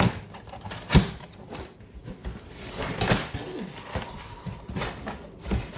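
A cardboard box being handled and opened: a few sharp knocks and scrapes, the loudest about a second in.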